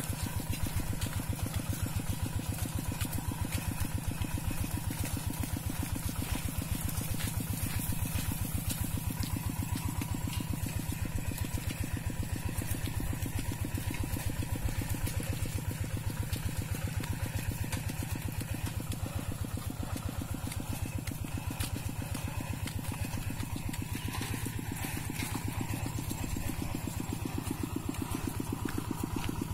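Small engine running steadily with an even, rapid beat.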